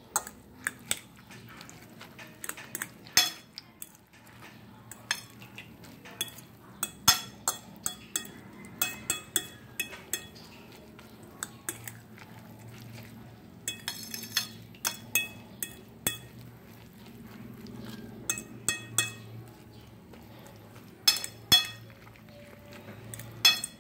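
A utensil clinking and tapping against a bowl while mixing a raw egg, ground pork and vegetable filling, in irregular clusters of sharp clicks, some leaving a short ring.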